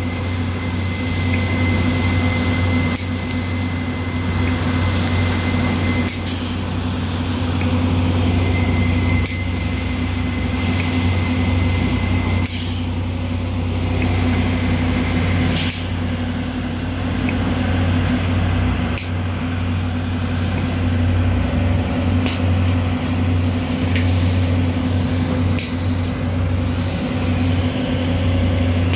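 Volvo EC210 BLC excavator's diesel engine and hydraulics working steadily as it digs under a running crusher and screening plant, whose machinery adds a continuous low mechanical hum. A faint click recurs about every three seconds.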